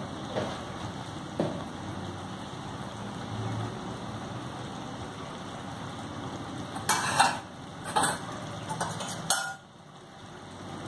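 Tomato pieces frying in hot oil in a steel kadai, a steady sizzle. A few short knocks come about seven to nine seconds in, and the sizzle dips briefly near the end.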